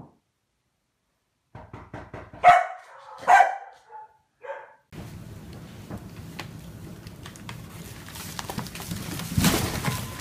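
A large corded-coat dog barking: two loud barks under a second apart, then two softer ones. After that comes a steady background hiss, with one louder brief noise near the end.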